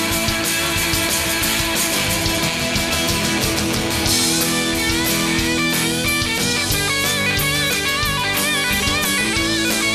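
Live country-rock band playing an instrumental passage: a lead electric guitar with bent, wavering notes, most prominent from about halfway through, over drums and bass.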